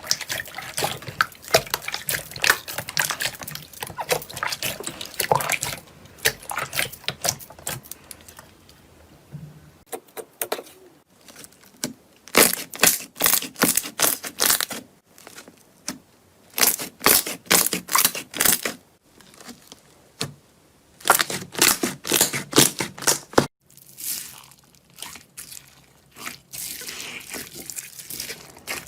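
Slime being squeezed and poked by hand: runs of rapid wet clicks and pops, coming in several bursts a second or two long with quieter stretches between.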